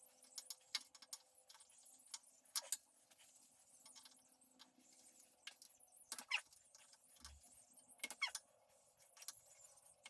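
Scattered light metallic clicks and clinks of a hand wrench and small bolts being worked on an engine, irregular and quiet, with a faint steady hum underneath.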